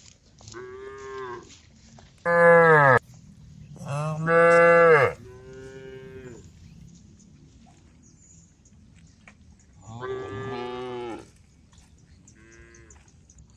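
Cows mooing: about six separate calls, the two loudest close together a few seconds in, then a quieter call near the end.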